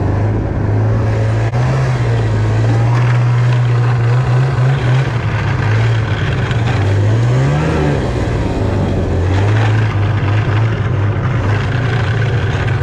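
Old Ski-Doo snowmobile's two-stroke engine running steadily under way. Its pitch rises once about two-thirds of the way through, then drops back.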